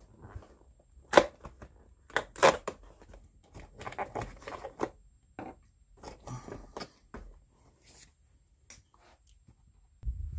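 Plastic windows and cardboard of a Disney Doorables Ultimate Mega Peek box being pried open by hand to pull the figures out: irregular sharp crackles and snaps, the loudest about one and two and a half seconds in, fading out in the last second or so.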